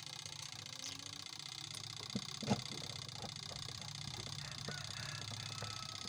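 Small clicks and taps of bolts being fitted into a washing machine's spin-dryer gearbox mounting, the sharpest about two and a half seconds in, over a steady low hum.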